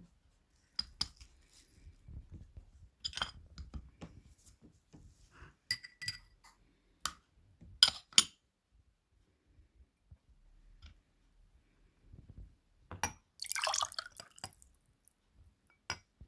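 Glass and utensil clinks while a hot orange drink is served into a glass: scattered light clicks, two sharp clinks about eight seconds in, and a short splash of liquid about thirteen seconds in.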